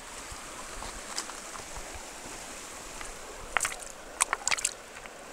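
Steady rush of river water flowing over a gravel bar, with a few sharp clicks of wet stones knocking together about three and a half seconds in and again just after four seconds.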